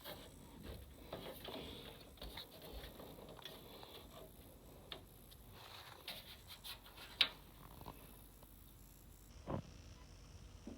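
Faint scattered clicks, taps and rustling of hands handling PC cables and connectors inside a computer case, with a sharper click about seven seconds in and a duller knock a couple of seconds later.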